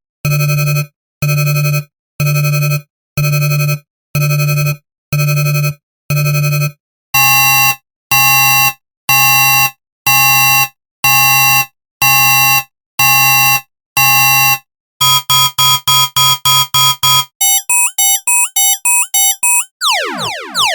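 A run of synthesized sci-fi alarm sound effects, changing pattern every few seconds: a low electronic beep repeating about once a second, then a brighter tone at the same pace, then fast pulses about five a second, then a warbling up-and-down pattern, and near the end rapid falling sweeps.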